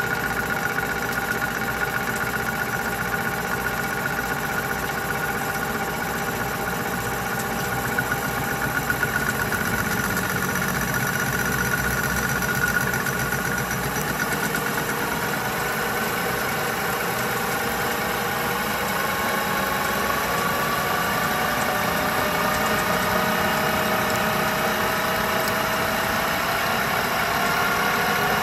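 Colchester Student metal lathe running steadily while its cutting tool takes a facing cut across a large spinning metal disc. A whining tone sings through the cut, and in the second half it climbs slowly in pitch.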